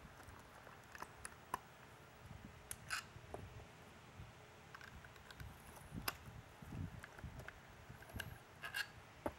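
Hand screwdriver backing screws out of a siren speaker's polycarbonate housing: faint scattered clicks and scrapes of the bit in the screw heads and against the plastic, with a few sharper clicks about 3, 6 and 9 seconds in.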